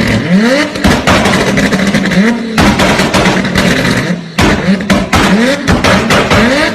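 Turbocharged car engine blipped repeatedly. Each short rise in pitch is followed by a rapid string of cracking exhaust bangs and pops, the backfire of an anti-lag system.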